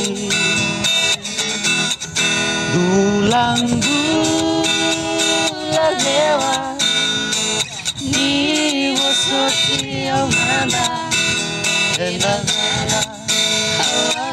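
Acoustic guitar strummed while voices sing a slow pop love song, amplified through a small portable speaker.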